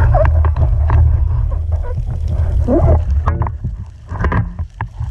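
Underwater sound picked up by a camera on a speargun during an ascent: a steady low rumble of water moving past the housing, with scattered clicks and a few short gliding, gurgling tones. The sound dips quieter for a moment about four seconds in.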